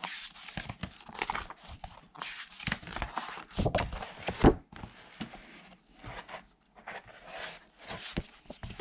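Paper pages of a softcover art book being turned and flipped by hand: repeated irregular rustles and swishes, with one louder thump about halfway through as the book is handled.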